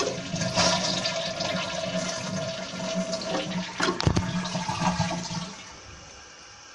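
2007 Kohler Wellworth toilet flushing: a loud rush of water for about five and a half seconds, then dropping to a quieter steady hiss as the tank starts its slow refill.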